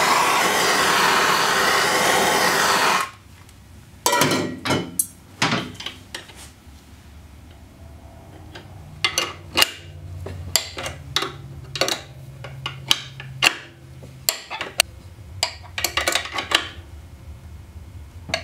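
Gas torch flame hissing loudly for about three seconds and then shutting off abruptly, heating the aluminium transmission case around the bearing bore. Then a long run of irregular metal clicks and clinks as a wrench turns the nut on a threaded-rod bearing installer tool, drawing the oversized tapered-bearing adapter into the warmed bore.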